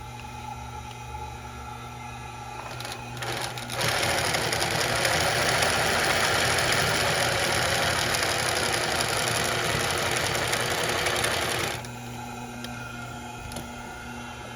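Brother TZ1-B652 industrial zigzag sewing machine: its motor hums steadily, then the machine runs at speed for about eight seconds starting about four seconds in, and stops, leaving the motor humming again.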